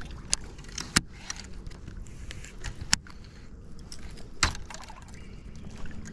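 Scattered knocks and rattles of fishing gear being handled aboard a kayak just after a fish is landed: about five sharp, separate knocks over several seconds, over a low background hiss.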